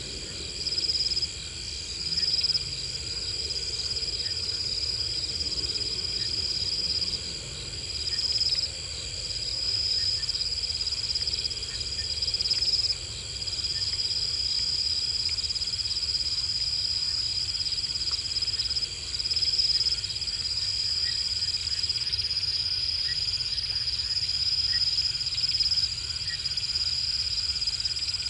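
Night chorus of crickets and other insects: a steady, high-pitched trill with a second, higher trill above it, swelling and dropping in level every few seconds.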